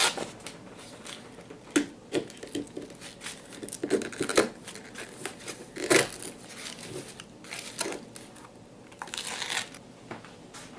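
Paper coffee filters crinkling and rustling as they are pulled off the tops of glass jars, in irregular bursts with small sharp clicks and knocks between them.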